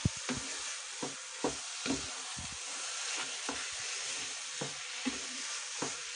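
Grated carrots with freshly added sugar sizzling in a non-stick pan while a spatula stirs them, the spatula scraping and knocking against the pan about ten times at an uneven pace over a steady frying hiss.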